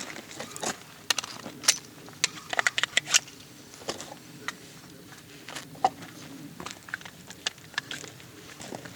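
Scattered light clicks and taps, about fifteen, at uneven spacing; no gunshot is heard.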